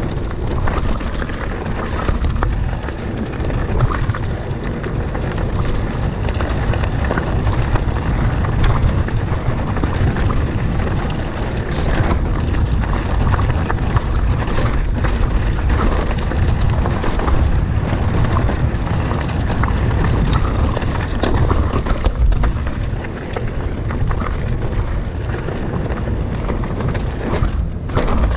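Wind buffeting the microphone of a camera on a mountain bike ridden fast downhill on a dirt trail, a steady low rumble. Over it come the tyres running on dirt and short rattles and knocks from the bike over bumps.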